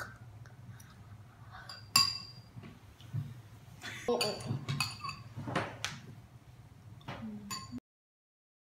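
Spoons clinking against bowls of milk-soaked garri: a sharp ringing clink about two seconds in and another near the end, with children laughing in between. The sound cuts off suddenly just before the end.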